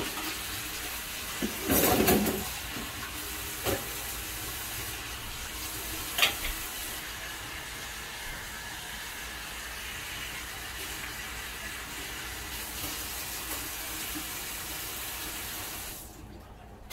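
Food cooking on an electric coil stove, hissing and sizzling steadily as steam rises from the pot. A brief louder clatter comes about two seconds in and a sharp click about six seconds in, and the hiss drops away near the end.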